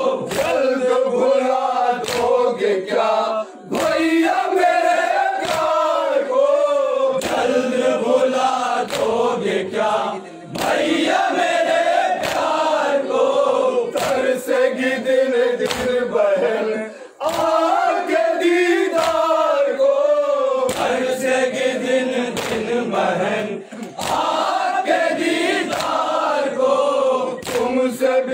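Men chanting a noha in unison without instruments, a lead voice carried by the group, with short breaks between lines. Sharp slaps of matam, hands striking chests, fall every second or so.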